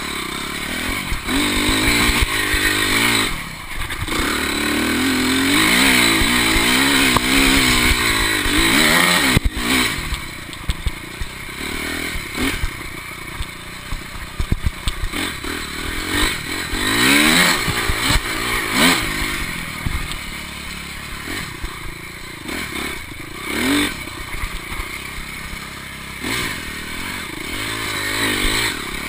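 Motocross bike engine revving up and down as it is ridden, its pitch climbing and dropping again and again, with short lulls when the throttle comes off. Frequent clattering knocks run through it.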